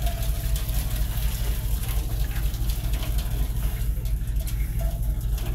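Hot cooking water poured off a pot of boiled green bananas and yam into a sink: a steady rush of splashing water over a constant low hum.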